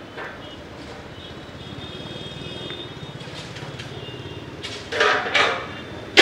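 Steady outdoor traffic rumble, with two short, loud horn blasts about five seconds in and another starting right at the end.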